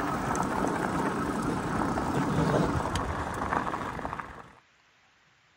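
An electric bike riding along a gravel road: a loud, even rolling noise of tyres and wind on the microphone, with scattered clicks of loose stones. It cuts off suddenly about four and a half seconds in, leaving near silence.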